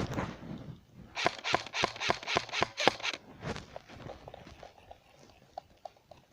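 Footsteps on dry ground: a quick, regular run of crunching steps at about five a second for two seconds, then a few scattered fainter clicks.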